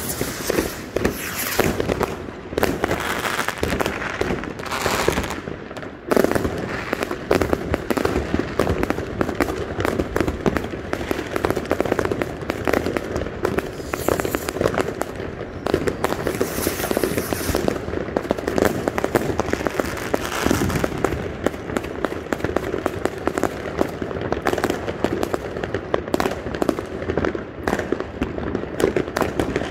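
Many aerial fireworks going off at once: a near-continuous barrage of bangs and crackles, with a hissing sound now and then.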